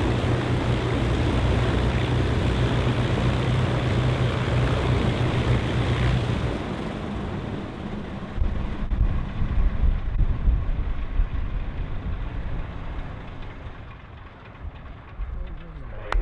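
A Lancaster bomber's Rolls-Royce Merlin V12 engines shutting down. A steady engine note stops about six and a half seconds in, and the sound winds down into a lower, uneven rumble that fades.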